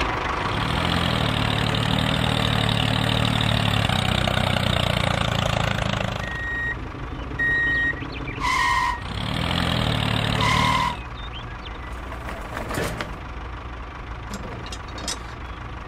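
Mini tractor engine running steadily for about six seconds, then dropping away. A few short beeps follow, two of them louder. The rest is quieter, with small clicks as a trailer drawbar is hooked onto the tractor's hitch.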